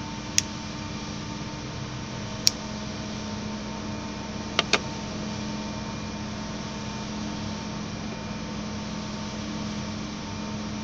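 Steady drone of distant machinery, a hum with several held tones. A few sharp clicks cut through it: one shortly after the start, another about two seconds later, and a close pair about halfway.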